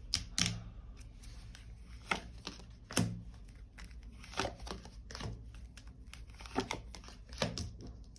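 A deck of tarot cards being shuffled and handled, with about eight crisp, irregular card snaps and flicks as the cards are worked and a card is drawn.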